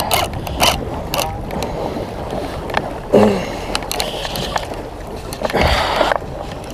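Water lapping and splashing against the hull of a small round plastic boat, with wind on the microphone and scattered clicks and knocks. A short falling-pitched sound about three seconds in is the loudest moment.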